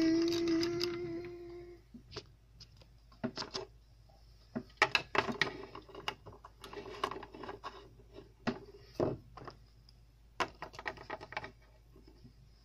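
A pitched hum rises and then holds for the first couple of seconds as the toy school bus is pushed. It then gives way to scattered clicks and taps of small plastic toy figures being handled and set down on a hard shelf.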